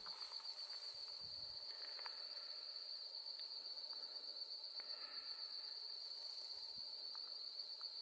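An insect trilling continuously at one steady high pitch, a cricket-like buzz, with a few faint ticks.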